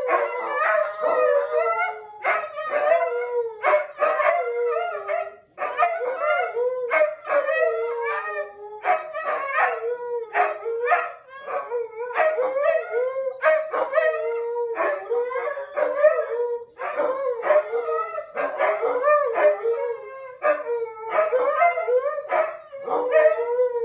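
Two huskies howling together: long, wavering calls that rise and fall in pitch and overlap one another, broken by short gaps.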